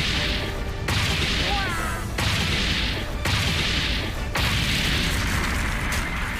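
Anime battle sound effects of sword strikes clashing: about five heavy impacts a second or so apart, each a sudden boom that trails off into a hissing rush, over a steady low rumble.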